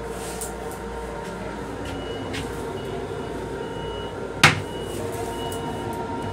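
Steady running noise of a Metro-North M7 electric railcar heard inside its restroom, with one sharp clack about four and a half seconds in as the plastic toilet seat is lowered onto the stainless steel bowl.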